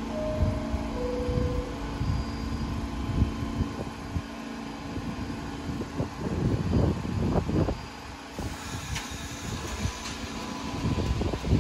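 New York City subway train at a station: a descending two-note door chime, then a steady hum and low rumble from the train. A series of heavy knocks comes about six to eight seconds in.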